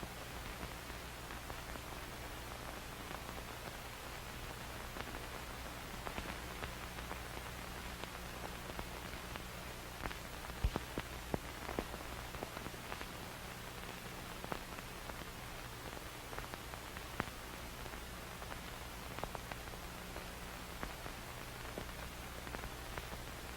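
Film static: a steady hiss over a low steady hum, dotted with scattered crackles and pops that come thickest about halfway through.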